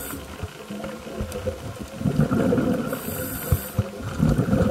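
Underwater diver's breathing through a demand helmet, heard over the diver's communications. Exhaust bubbles rumble and crackle, and there is a short inhalation hiss from the regulator about three seconds in.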